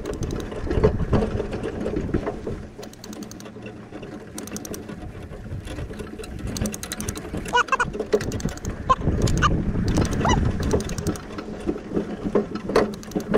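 Small metal pony-driving cart and harness rattling and clicking unevenly as a miniature pony pulls it across a sand arena, with a low rumble under it.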